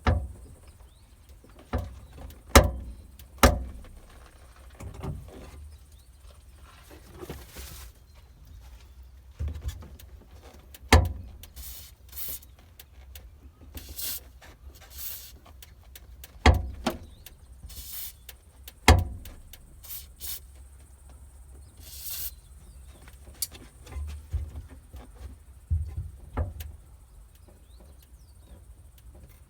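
Irregular sharp knocks and clunks from handling the truck's door and glass, about a dozen, with several short hisses in between.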